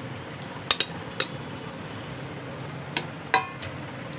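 Stainless steel plate clinking and knocking as it is handled and set down on a kitchen counter: a quick double clink within the first second, another just after, then two more about three seconds in, the last and loudest ringing briefly. A low steady hum runs underneath.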